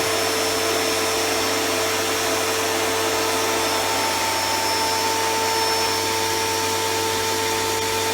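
Titan TTB66PRW electric pressure washer running steadily, its motor giving a constant whine over the hiss of the water spray.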